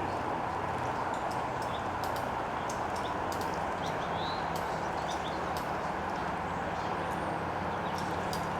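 Small birds giving short, high chirps now and then, with faint sharp ticks, over a steady rushing background noise.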